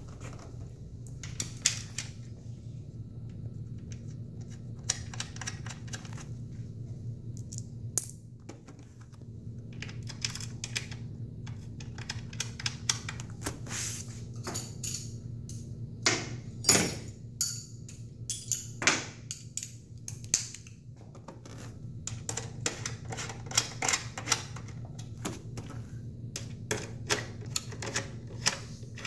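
Scattered clicks, taps and knocks from a sportbike's seat and plastic tail bodywork being handled and pressed into place by hand, then a hand driver turning a seat bolt, with a dense run of quick clicks near the end.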